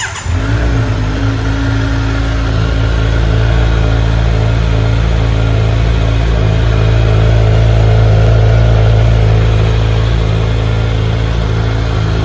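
Kawasaki Z900's 948 cc inline-four engine fires up at the very start and settles into a steady idle, its exhaust note loud.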